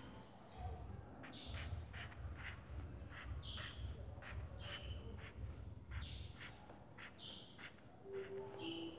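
A felt-tip marker scratching on paper in short, quick shading strokes, heard as a string of faint ticks. Birds chirp now and then in the background.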